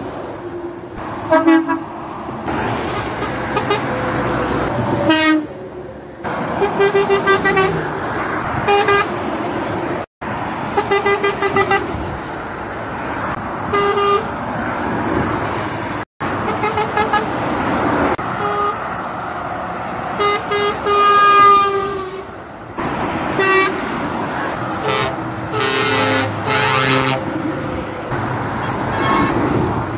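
Truck horns sounded again and again: many short and longer blasts, some with several tones sounding together, over steady road and engine noise. The sound drops out abruptly twice, about a third and half way through.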